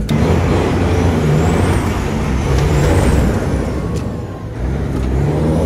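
Old Detroit diesel engine in an International truck pulling hard under acceleration, with a high whine that climbs and then falls twice as the revs rise and drop. The engine note dips briefly about four and a half seconds in, then picks up again.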